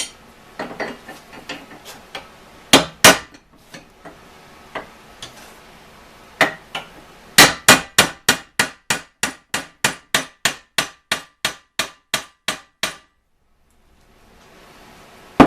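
Hammer striking a steel pin on a Model T transmission pedal. First come scattered light taps and two heavy blows about three seconds in, then a steady run of about three blows a second that peens the pin's end over, and it stops abruptly.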